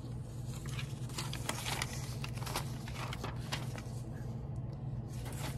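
Paper rustling with scattered soft crackles as papers and clippings are handled, over a steady low hum.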